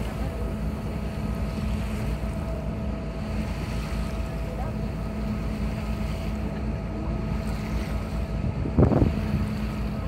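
Harbour ferry's engine running with a steady hum under wind noise on the microphone. A single low thump near the end.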